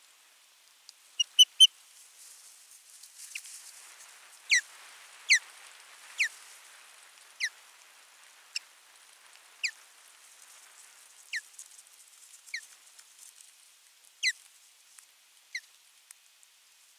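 Ospreys calling at the nest: a series of sharp whistled notes, each sliding downward, about one every second or so, with a quick run of three short chirps just over a second in. A soft rustling hiss lies under the calls through the first half.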